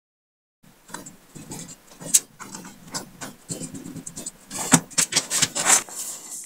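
Small T7 precision screwdriver turning the tiny screws in the case of a Garmin Fenix 5X watch: scattered clicks and scrapes of the metal bit against the screw heads, with the watch being handled. There is a sharp click about two seconds in and a cluster of louder clicks near the five-second mark.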